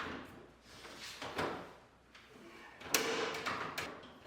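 Plastic clips of a Hotpoint washing machine's front control panel clicking into place as the panel is pushed down: a few short plastic clicks and knocks, the sharpest about three seconds in.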